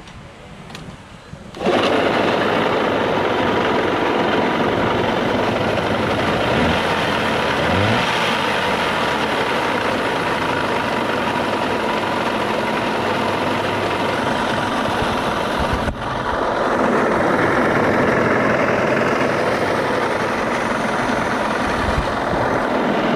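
Yamaha 15 hp outboard motor, standing in a test drum of water, starting up abruptly about a second and a half in and then running steadily, with a brief dip near two-thirds of the way. The mechanic says the motor has a damaged bearing that is to be replaced.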